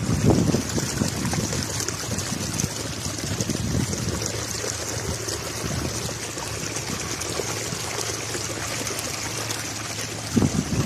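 Water from a homemade gold-washing highbanker running off the end of its sluice as a steady sheet and splashing into a tub of water below.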